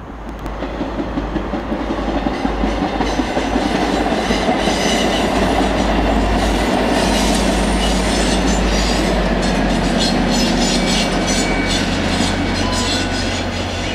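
MARC diesel commuter train passing, with an EMD GP40 locomotive at one end, its engine giving a steady low drone. The wheels click repeatedly over the rail joints. The sound builds over the first few seconds and eases near the end as the train goes by.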